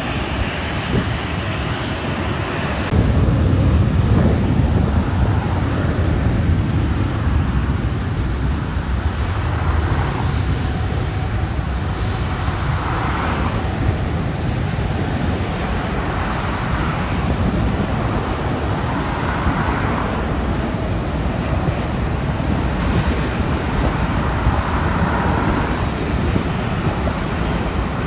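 Jet airliner engine noise, a steady loud rumble that steps up abruptly about three seconds in, mixed with road traffic passing.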